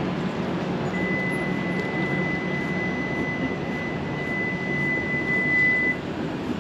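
Steady outdoor city background noise. A single steady high tone starts about a second in, holds for about five seconds and cuts off sharply.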